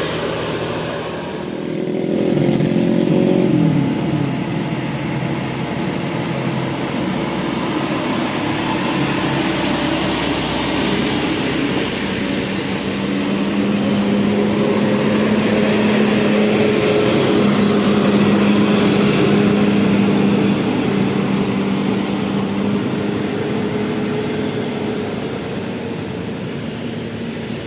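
Bus diesel engines running in passing traffic, a continuous loud mechanical noise with a low drone; the pitch drops about three seconds in and the noise swells again through the middle.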